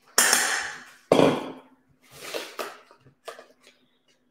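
Metal spoon knocking and scraping against a stainless-steel mixing bowl while biscuit crumb is scooped out: two loud knocks about a second apart, then softer scrapes and clinks.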